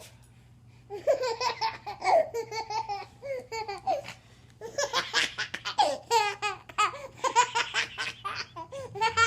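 A baby laughing in rapid, repeated belly-laugh giggles, in two long runs with a short break about four seconds in.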